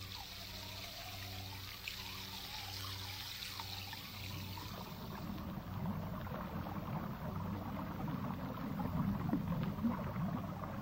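A steady stream pouring down with a trickling hiss over a low hum. About halfway through the hiss gives way to a lower, rougher rushing noise that grows louder.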